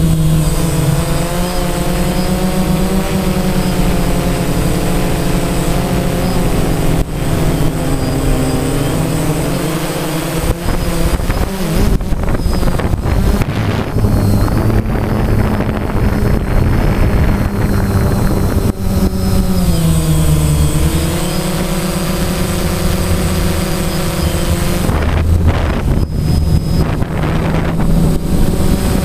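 DJI Phantom quadcopter's four electric motors and propellers whirring in flight, heard close up from the drone itself. It is a steady multi-toned buzz that sags and climbs back in pitch as the throttle changes, once a few seconds in and again about two-thirds of the way through.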